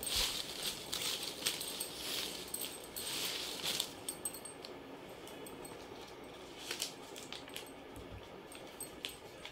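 Small folded paper slips rustling and ticking against each other as hands stir a pile of them on a cloth, for about four seconds. After that it goes quieter, with a few soft paper crinkles as a single slip is picked up and unfolded.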